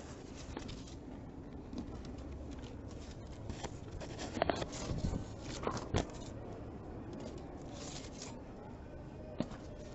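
Handling noise from painted boards carried right against a body-worn camera: rubbing and a few sharp knocks around the middle and one near the end, over a steady low rumble.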